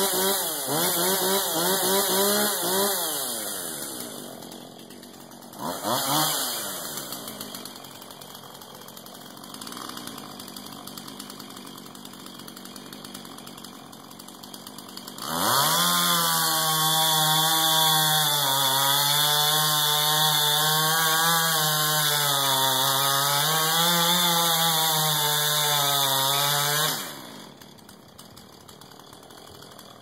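Husqvarna 445 two-stroke chainsaw with an 18-inch bar revving and dying down at the start, with a short rev a few seconds later. About halfway through it goes to full throttle for about eleven seconds, cutting into a tree trunk, its pitch sagging and recovering under load, then cuts off suddenly.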